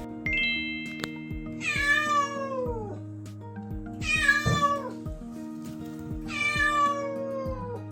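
A cat meowing three times, each a long call that falls in pitch.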